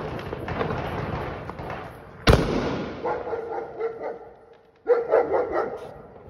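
Firecracker on the road, its lit fuse hissing and sputtering, then a single sharp bang about two seconds in. A dog barks in short bursts afterwards.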